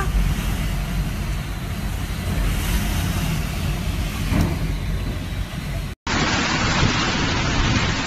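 Typhoon-force wind buffeting the microphone as a steady, rumbling noise, with rain. The sound cuts out for an instant about six seconds in, and a second recording of wind and rain with more hiss follows.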